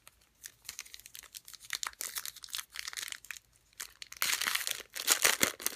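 Foil trading-card pack wrapper crinkling as it is picked up and torn open by hand, a dense crackly rustle that grows loudest near the end as the pack is ripped.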